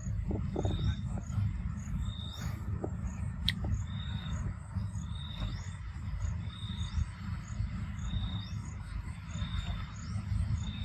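Forest insects chirping: a short high chirp repeating every second or so over faster, fainter high ticking, with a steady low rumble underneath and one sharp click about three and a half seconds in.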